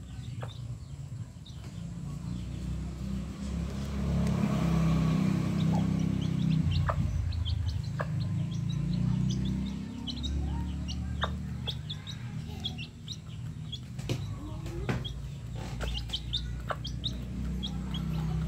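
Ayam kampung chicks giving short, high peeping chirps while they and the hen peck rice off concrete, with scattered sharp pecking ticks. Underneath, a steady low rumble swells through the middle and eases off.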